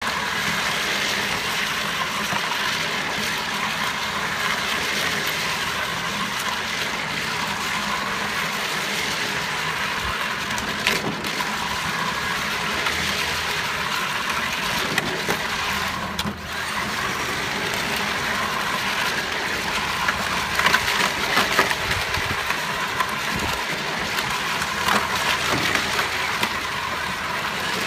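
Battery-powered ride-on toy jeep driving in circles on asphalt: a steady grinding rumble of hard plastic wheels on the pavement, with a faint electric motor whine and occasional clicks and knocks.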